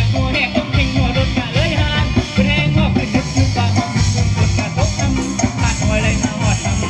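Loud amplified band music over a stage PA, with a singing voice and a heavy bass beat.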